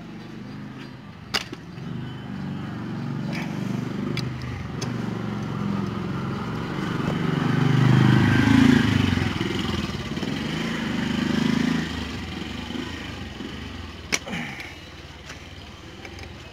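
A motor vehicle passing by, its engine sound swelling to a peak about eight seconds in and then fading. A couple of sharp metal clicks come from a wrench on the motorcycle engine's cylinder-base bolts, one near the start and one near the end.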